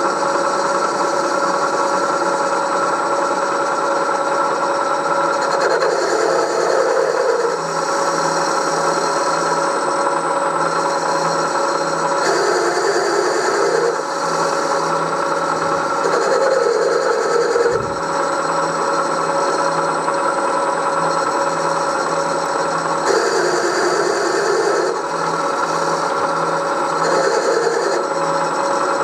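Bridgeport milling machine running with an end mill cutting the face of a cast iron cylinder cover. The spindle gives a steady whine, and a rougher cutting sound swells and fades about five times.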